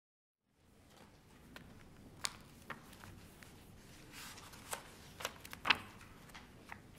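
Papers rustling and pages being turned at a desk, with a handful of sharp clicks and taps, the loudest about five and a half seconds in, over quiet room tone. The sound comes in after a moment of dead silence at the start.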